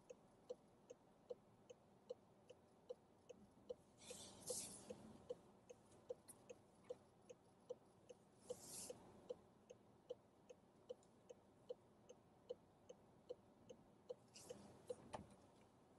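A car's indicator relay ticking evenly, about two and a half ticks a second, faint inside the cabin. Passing traffic whooshes by three times, at about four, eight and a half and fourteen seconds in.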